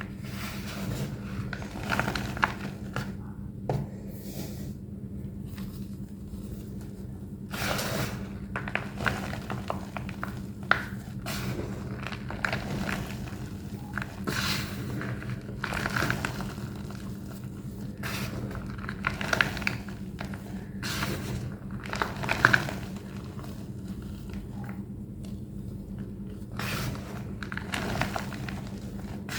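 Thick blocks of plain white homemade gym chalk being crushed, giving irregular crunches and crumbling with a squeaky texture.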